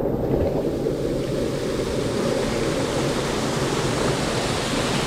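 Steady rushing of wind and water, with wind buffeting the microphone; the noise grows brighter about a second in.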